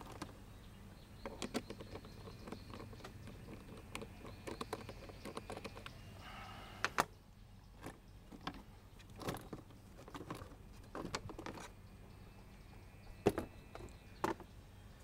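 Plastic engine cover being removed by hand: scattered small clicks and rattles as its fastener caps are undone, then sharper plastic knocks near the end as the cover is lifted off.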